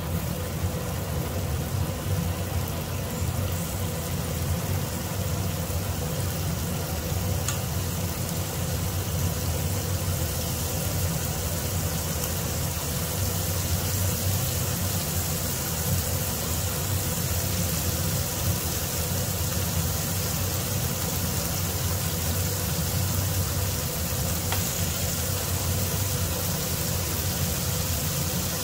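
Marinated beef slices frying in butter in a nonstick pan, a steady sizzle that grows fuller about ten seconds in as more slices go into the pan. A steady low hum runs underneath and is the loudest part.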